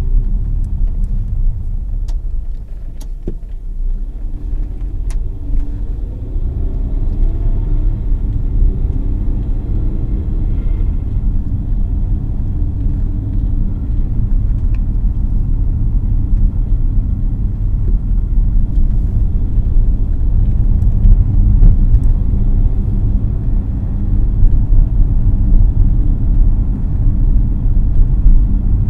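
Car driving on a city road: a steady low rumble of engine and tyre noise, with the engine rising in pitch as the car speeds up several seconds in, and the noise growing louder toward the end.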